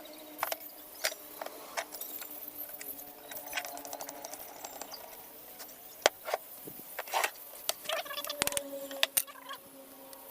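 Irregular light knocks and clicks of woodworking on timber, over a faint steady hum.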